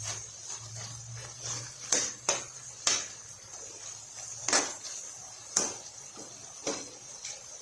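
A cooking utensil knocking and scraping against a pan while chicken dinuguan with squid ink is stirred: several separate sharp clinks at irregular intervals over a faint steady hiss.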